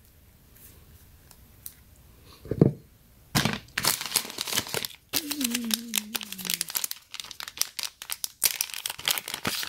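A phone case's plastic packaging bag being handled and opened: crinkling and crackling plastic, coming in about three and a half seconds in and running on busily. A single soft knock comes before it, as the phone is set down on its box.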